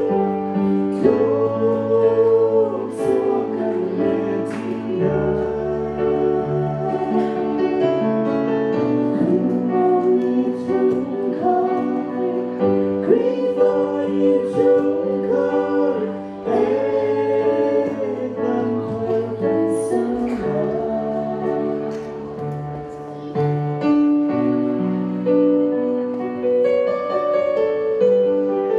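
Music: a group of voices singing together over instrumental accompaniment.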